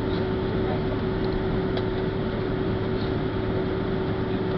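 Boeing 767-300's jet engines running steadily, heard from inside the passenger cabin: an even rush of noise with a steady hum underneath.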